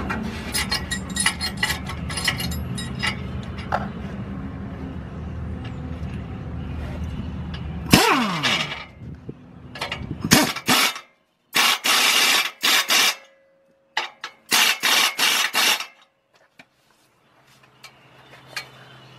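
Socket and ratchet tightening the nut of an exhaust pipe clamp: from about ten seconds in, short strokes of ratchet clicking with pauses between them. Before that, a steady low hum with scattered clicks, which stops sharply about eight seconds in.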